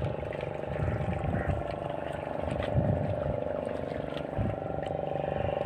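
Fishing boat's engine running steadily at sea, a constant drone, with irregular low thuds underneath.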